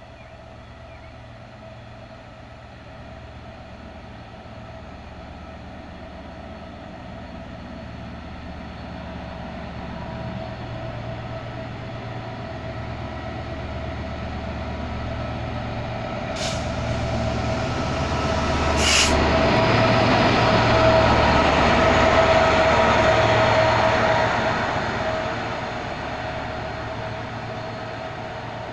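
A Class 66 diesel-electric freight locomotive approaches and passes, its engine growing steadily louder. It is loudest about two-thirds of the way in, then eases as the train of biomass wagons follows. Two sharp clicks come shortly before the loudest part.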